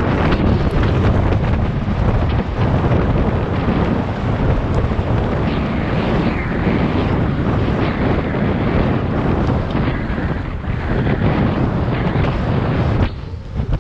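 Loud, steady wind buffeting on the microphone of a moving GoPro Hero 7 Black action camera, with a brief lull about a second before the end.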